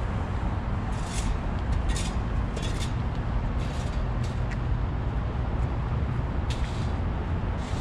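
Outdoor street ambience: a steady low rumble of traffic, with short scuffs about once a second from footsteps on the pavement.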